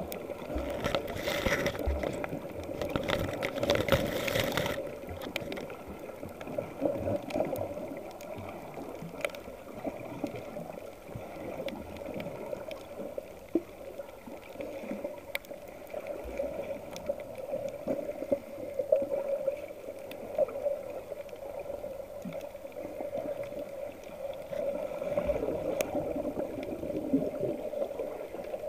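Muffled underwater wash of moving seawater heard by a submerged camera, a steady low gurgling rush. It is louder and hissier for the first few seconds, then settles.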